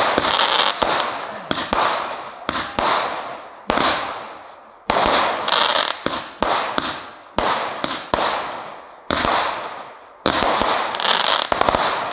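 Fireworks fired in quick succession from street level and bursting overhead: a sharp bang about once a second, each trailing off in a fizz that fades before the next shot.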